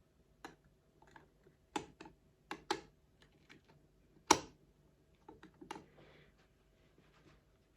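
Irregular small metal clicks and taps of a steel slide plate being fitted and seated on the bed of a 1935 Singer 66K sewing machine, with one sharper knock a little past the middle.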